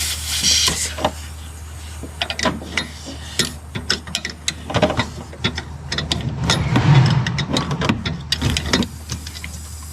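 Hand tools clicking and rattling against metal, ratchet-like, as the air suspension lines and fittings are worked on. There is a short hiss of noise at the start and a busier stretch of rattling about two-thirds of the way through, over a steady low hum.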